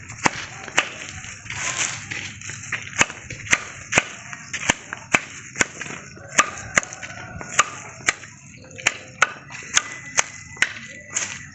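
Axe blows chopping into a tree trunk: sharp, hard strikes about two a second at an uneven pace, some coming close together in pairs.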